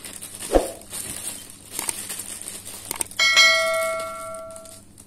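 A click, then a bell chime that rings and fades away over about a second and a half: the sound effect of an animated YouTube subscribe-button overlay. Earlier there is a short knock from handling the box.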